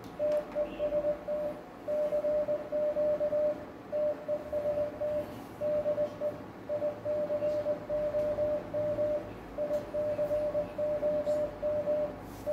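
Morse code sent as a single steady beep tone in long and short elements: the transceiver's CW sidetone while it drives the linear amplifier to about 1100 W output on the 20 m band.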